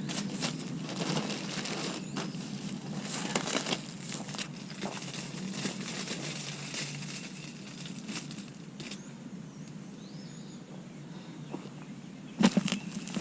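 Rustling and crackling of mulch being handled and spread, with scattered small knocks. The sound is busier in the first half and then quieter, with a louder rustling clatter near the end.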